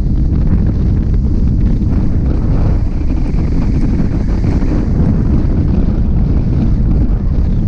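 Wind buffeting the microphone of a camera mounted on a hang glider in flight: a loud, steady low rumble of rushing air.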